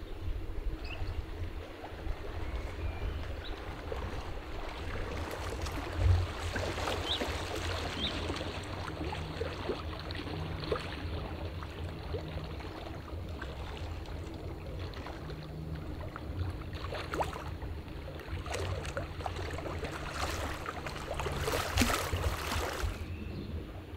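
Small lake waves lapping and splashing against a stone shore wall, in irregular slaps that come thickest near the start and again near the end, over a low steady rumble.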